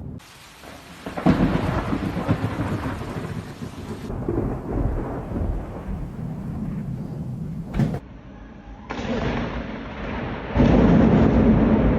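Thunder rumbling over steady rain, with the loudest rumbles about a second in and again near the end; the sound changes abruptly several times.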